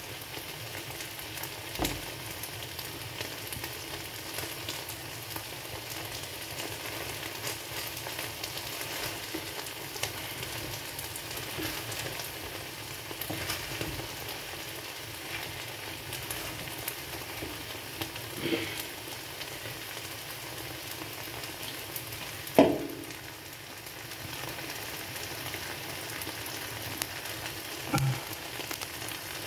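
Paella of rice and vegetables sizzling steadily in a frying pan on the hob while a wooden spoon crushes and stirs it, with light scraping clicks and a few short knocks, the loudest about 22 seconds in.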